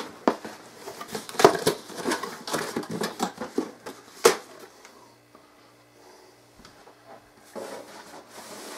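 Packaging and items being handled: a run of rustles and clicks with two sharp clicks, then a faint steady hum and a brief rustle near the end.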